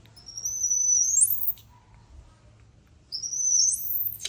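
Baby macaque giving two long, shrill calls, each held high and then sweeping sharply up in pitch at its end, the second starting about a second and a half after the first ends.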